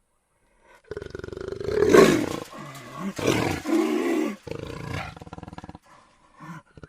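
A large animal roaring: rough, rapidly pulsing calls that start about a second in, are loudest about two seconds in, and trail off into lower rumbling before a short pause near the end.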